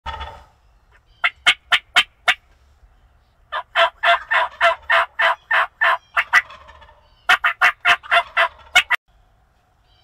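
Wild turkey calling: a brief call at the very start, then three runs of short, evenly spaced loud notes at about four a second, the middle run the longest, stopping about nine seconds in.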